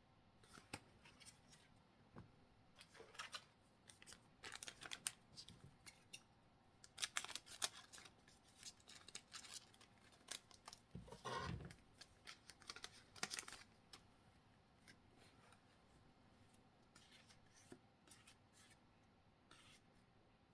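Faint crinkling and clicking of a thin foil Pokémon booster pack being opened and its cards handled, busiest in the middle stretch.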